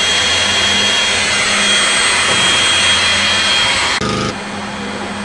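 Construction machinery running steadily with a loud hiss and a high whine, likely the trenchless pipe-pulling rig at work; about four seconds in the sound changes abruptly, with a brief pitched hum, and drops to a quieter steady machine noise.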